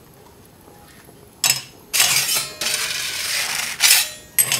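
Hard objects clattering and scraping: a sharp clink about a second and a half in, a rough scraping, crunching noise for about two seconds, then two more clinks near the end.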